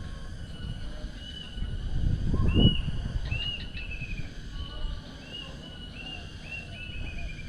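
Small birds chirping over and over in short arched notes, ending in a quick falling run of notes near the end, over a faint steady insect whine. A low rumble swells and fades about two to three seconds in.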